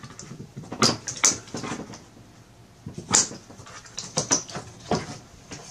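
A handful of short knocks and scrapes as large whiteboard panels are handled and shifted by hand.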